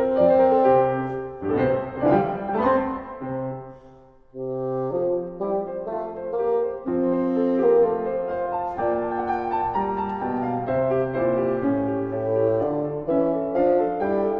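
Bassoon playing sustained melodic lines with grand piano accompaniment. The music dies away to a brief pause about four seconds in, then both instruments come back in.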